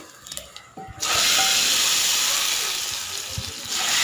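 Hot oil tempering of mustard seeds, urad dal, curry leaves and dried red chillies poured into the cooked snake gourd and chana dal koottu, sizzling with a sudden loud hiss about a second in that eases off, then swells again near the end.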